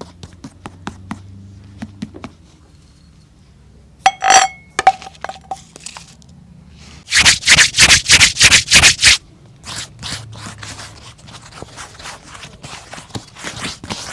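Shoe-shining strokes on a leather boot, with a burst of about ten loud quick strokes a little past the middle and lighter strokes after it. A short ringing clink comes about four seconds in, with light taps around it.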